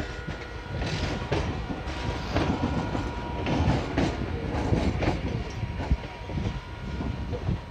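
Three-phase MEMU electric train pulling out and rolling past close by, its wheels clattering irregularly over rail joints and points over a constant low rumble, with a faint steady high tone.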